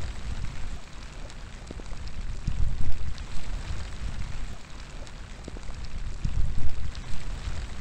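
Steady outdoor rain hissing, with scattered drops ticking close by. Low gusts of wind rumble and swell twice, about three seconds in and again about six and a half seconds in.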